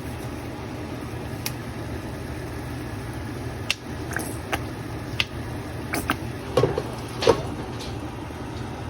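Kitchen cooking sounds: a steady low hum, with a scattered run of light clicks and knocks, likely from a pan and utensils. The loudest knocks come about six and a half and seven and a quarter seconds in.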